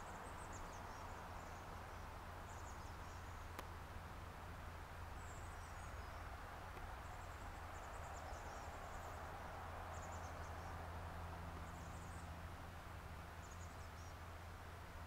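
Faint outdoor ambience: a steady low hum and hiss, with thin, very high chirps every second or two.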